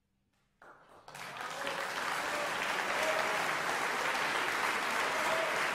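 Concert audience applauding a piano performance. The clapping breaks out suddenly about half a second in and swells within a second or so to a steady ovation.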